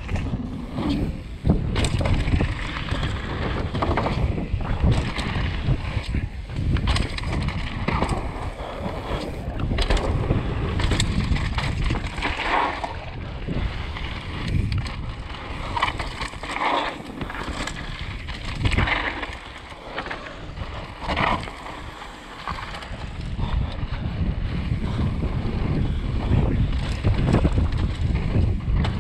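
Wind rushing over the GoPro microphone on a fast downhill mountain-bike run, with the Canyon Torque's tyres rolling over dirt and gravel and the bike knocking and rattling over bumps.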